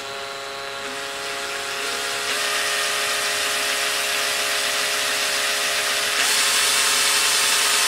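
Cordless drill running continuously with a steady motor whine as a small pilot bit drills through a circuit board. The pitch steps up slightly about two seconds in and again about six seconds in, and the sound grows gradually louder.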